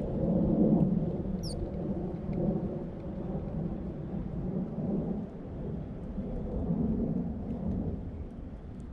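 Wind buffeting the camera microphone: a low, gusting rumble that swells and fades, loudest about half a second in.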